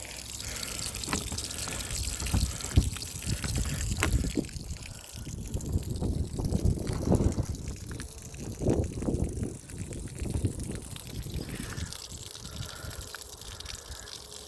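Water spurting and splashing from the outlet of a Rule 360 GPH bilge pump, fitted with a pourer spout, with a few knocks in the first few seconds.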